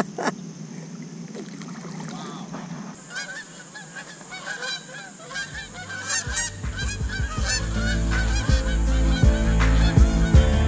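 A flock of geese honking in flight, many overlapping calls that grow thicker about three seconds in. Background music fades in under the honking in the second half and gets louder.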